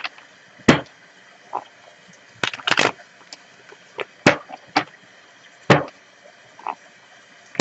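Tarot deck being shuffled by hand: about ten sharp snaps and slaps of the cards at uneven intervals.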